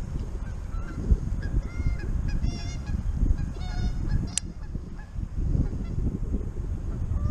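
Geese honking, a series of short calls between about half a second and four seconds in, over a steady low rumble. A single sharp click comes about four and a half seconds in.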